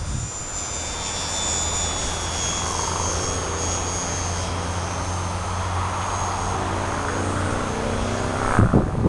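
Foam RC plane's motor and propeller whining overhead as a thin high-pitched whine that drifts up and down in pitch. Near the end, loud rumbling bursts on the microphone.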